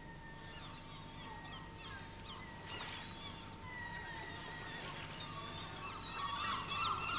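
Gulls calling: many short overlapping cries that grow louder and busier toward the end, over a faint steady hum.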